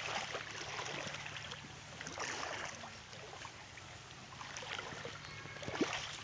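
Shallow creek water trickling, with scattered rustles and clicks throughout and one sharper click near the end.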